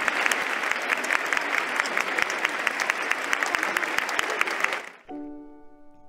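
Large crowd applauding, dense and sustained, which cuts off suddenly about five seconds in. A held chord of soft keyboard background music follows.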